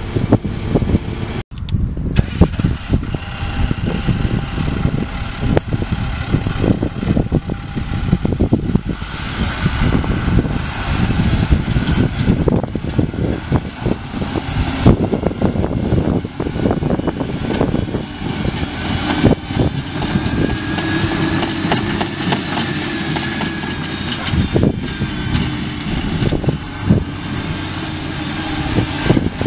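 International DT466E 7.6-litre inline-six diesel engine of a 2000 International 4900 truck running, with frequent knocks and rattles; its pitch rises and falls once past the middle.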